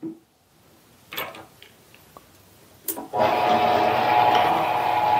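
A few light clicks and knocks, then about three seconds in a mini metal lathe is switched on and its spindle runs at a steady hum with a constant whine.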